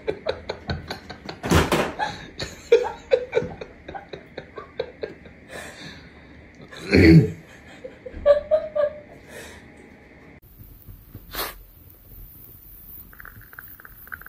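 A person laughing in quick, breathy bursts, with one loud outburst about seven seconds in; it goes quiet after about ten seconds.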